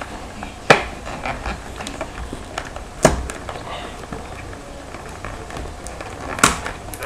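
Cardboard trading-card box being opened by hand: three sharp snaps or taps of the cardboard, about a second in, at about three seconds and near the end, with smaller ticks and light rustling between.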